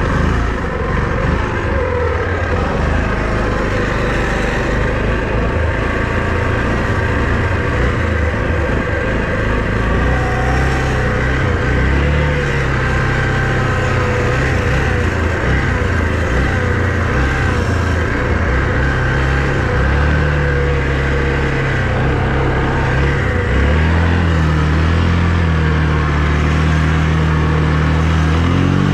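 All-terrain vehicle engine running under way, holding steady and then stepping up and down in pitch with throttle changes, rising higher near the end.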